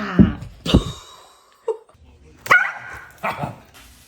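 Dog barking several times in short, separate barks.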